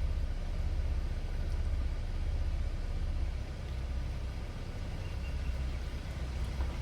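A vehicle's engine idling, a steady low rumble heard from inside the cab, easing slightly a little past halfway.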